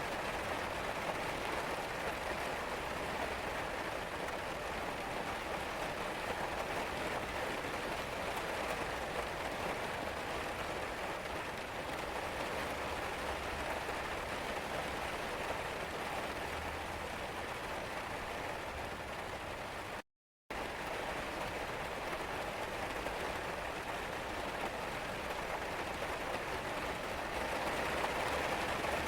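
Steady rain falling and tapping on surfaces, an even continuous hiss. About two-thirds of the way through it cuts out completely for half a second, then resumes.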